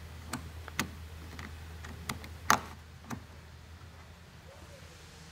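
Small metal clicks and ticks of a wrench working the jam nut and hex-nut end of a tonneau cover's latch cable: about six irregular clicks in the first three seconds, the loudest about two and a half seconds in, over a steady low hum.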